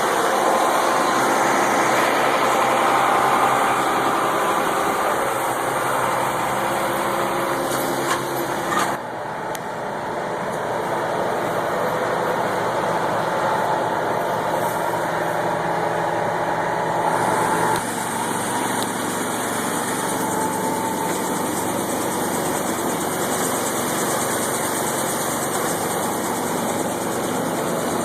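Gleaner R-65 combine harvester running steadily while harvesting wheat, with a sudden drop in level about nine seconds in and another step down near eighteen seconds.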